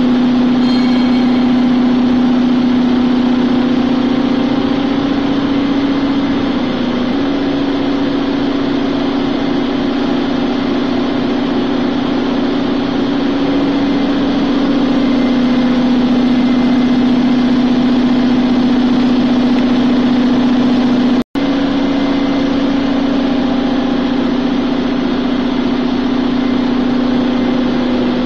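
Circular vibrating screen running unloaded on a test run, its V-belt-driven electric motor and vibrator giving a loud, steady machine hum with a strong drone. The sound breaks off for an instant about two-thirds of the way through.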